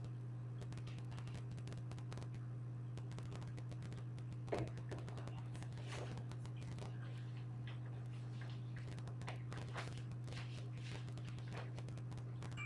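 Irregular light clicks and scrapes of a puppy's claws and paws on a hardwood floor as it is handled and set down, over a steady low hum; one sharper knock a little after four seconds in.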